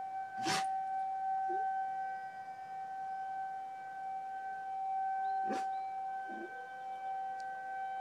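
Outdoor tornado warning siren sounding a steady, unwavering tone, with two brief clicks, one about half a second in and one about five and a half seconds in.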